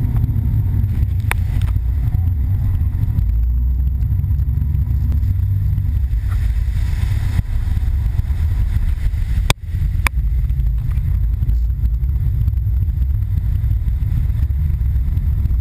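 Sportfishing boat backing down hard in reverse: a loud, steady low rumble of engines and rushing water as waves wash over the transom into the cockpit. There are a couple of sharp knocks about two-thirds of the way through.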